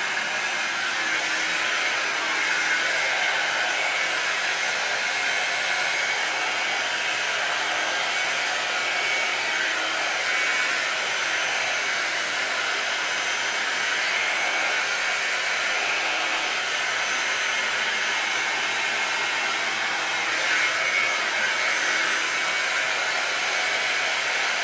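Revlon one-step brush blow dryer running steadily on its high setting, blowing hot air through the hair, with a faint motor hum under the air rush and slight swells as the brush moves through the hair.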